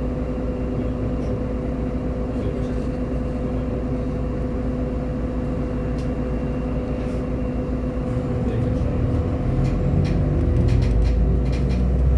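Irisbus Agora L city bus engine running with a steady hum. About eight seconds in it grows louder and deeper as the bus accelerates, with light rattles near the end.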